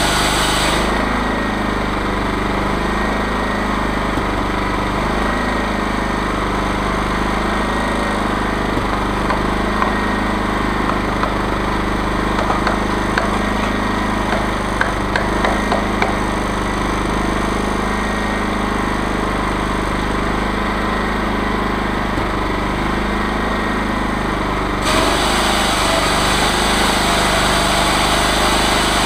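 Engine-driven chainsaw mill running steadily. Its higher-pitched sound drops away about a second in and comes back near the end, with a few light clicks in between.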